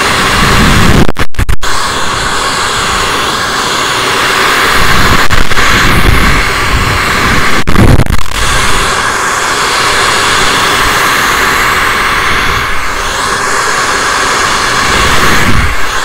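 Handheld hair dryer blowing steadily as it is worked through long hair with a brush, with several louder, lower gusts. The sound breaks off very briefly a few times about a second in.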